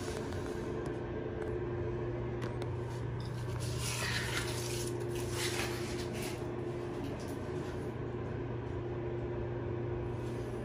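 A steady low hum runs under brief scraping and rustling about four to six seconds in: thick vinyl wallpaper being worked into a corner with a smoother and trimming knife.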